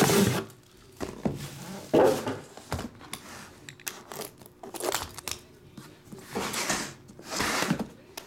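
A utility knife scraping and cutting through the seal sticker on an aluminium card-box case, in several short strokes. Two louder knocks, at the start and about two seconds in, come from the case being handled.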